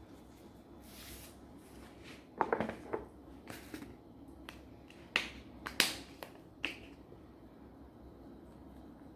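Kitchen handling noise as seasoning is applied to raw chicken legs: a few sharp clicks and taps, clustered about two and a half seconds in and again around five to seven seconds in.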